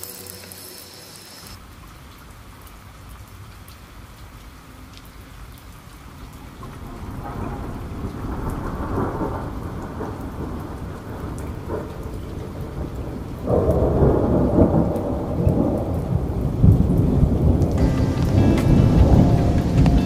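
Rain with thunder rumbling: it builds from about six seconds in, and about thirteen seconds in it turns suddenly into a much louder, dense low rumble over the rain.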